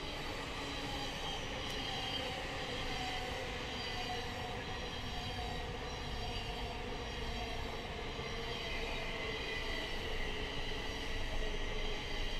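A train running along the line: a low rumble with steady high whining, squealing tones over it, growing a little louder near the end.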